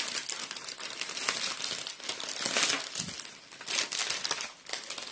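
Clear plastic film over a framed canvas crinkling in irregular bursts as it is opened and handled.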